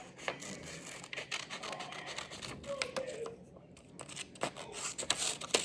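Scissors cutting paper: an irregular run of snips with paper rustling.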